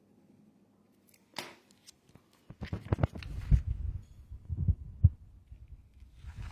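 Handling noise of a paper sheet being moved about: short rustles and irregular dull low thumps, starting after a quiet first second.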